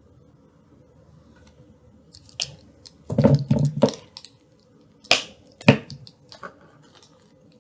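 Kitchen utensils knocking and clinking against a mixing bowl while butter is added to flour. A cluster of loud knocks about three seconds in, then two sharp clicks a second or two later.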